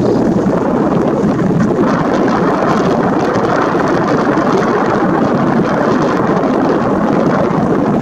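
Wind and rippling river water: a steady, even rushing noise with no calls or other distinct sounds in it.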